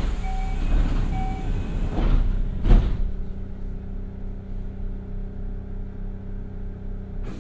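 Kintetsu 1021-series train standing with a steady electrical hum. Two short beeps come within the first second and a half. The doors then slide shut with a single thud a little under three seconds in, after which the outside noise falls away.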